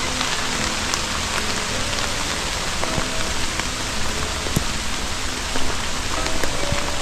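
Steady rain falling, a constant hiss with scattered sharper drop taps and ticks.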